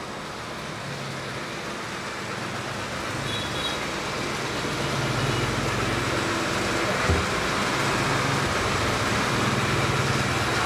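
Two robot vacuum-mops, an Ecovacs Deebot T9 and a Roborock S7, running together in mopping mode with their vibrating mop pads working: a steady motor-and-fan whir over a low hum that gets louder about halfway through. There is a single short knock about two-thirds of the way in.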